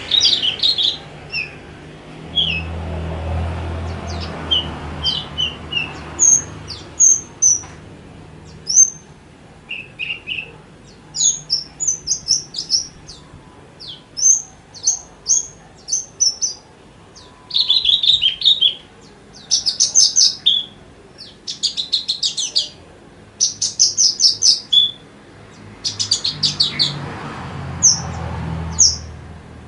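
Javan bush lark singing a fast, varied song of short high chirps and whistled notes with only brief gaps, with runs of rapid buzzy trills in the second half. A fainter low hum comes in underneath a couple of seconds in and again near the end.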